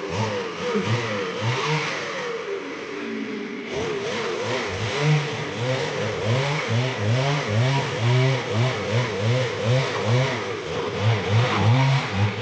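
An engine revving up and down over and over, its pitch rising and falling in quick arcs about twice a second, getting busier about four seconds in.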